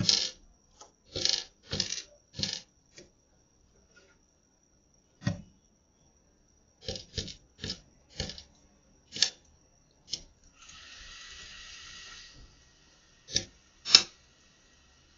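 Spotted doves pecking seed off a hard balcony ledge: irregular sharp taps and clicks of their beaks, some in quick clusters of two or three. About two-thirds of the way through, a brief hiss lasts under two seconds.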